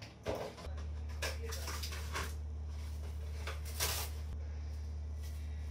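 Kitchen stove-top cooking sounds. A steady low hum switches on about a second in and carries on, and several short bursts of sizzling or rustling noise come over the first four seconds.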